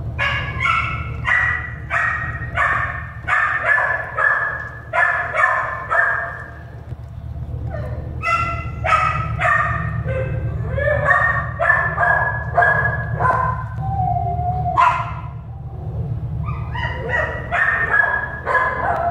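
Dog barking in runs of about two barks a second, broken by short pauses, with a drawn-out whine about fourteen seconds in, over a steady low hum.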